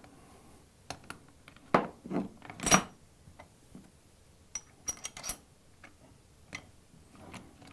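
Metal crimper die pieces being handled and set in place, clinking and knocking against each other and the crimper body in a string of sharp separate strikes, the loudest a little under three seconds in and a quick run of clinks about five seconds in.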